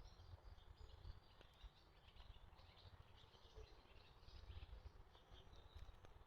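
Faint outdoor ambience: scattered, irregular high chirps of small birds over a low rumble.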